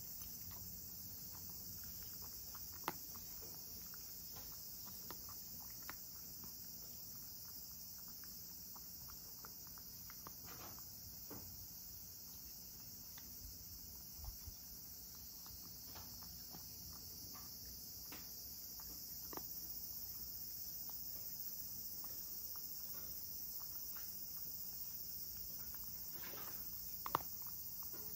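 A cat crunching dry kibble from a ceramic bowl: scattered small crunches and ticks, with two sharper clicks, about three seconds in and near the end, over a steady high-pitched hiss.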